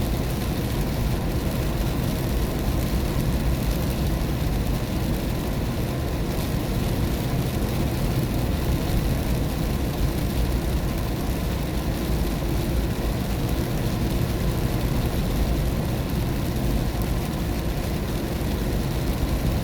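Steady road and tyre noise of a car driving on the highway at night in the rain, heard from inside the cabin, with rain on the car mixed into the low, even rumble.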